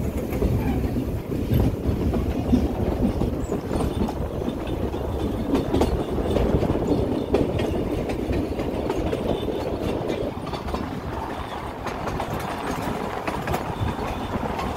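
Puffing Billy narrow-gauge railway carriage running along the track: a steady rumble of the wheels with frequent clicks and clacks over the rail joints, easing a little near the end.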